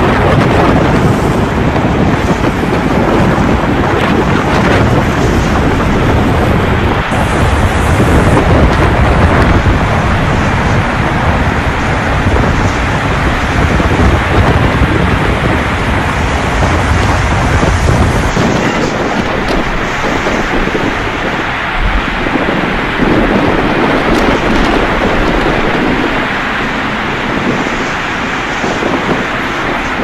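Typhoon-force wind with heavy rain, hard gusts buffeting the microphone with a loud low rumble. About two-thirds of the way in, the low rumble drops away and a steadier rush of wind and rain remains.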